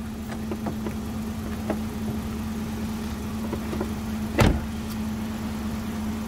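Chevrolet Suburban idling with a steady low hum, a few small clicks as the driver gets in, and the driver's door slamming shut about four and a half seconds in.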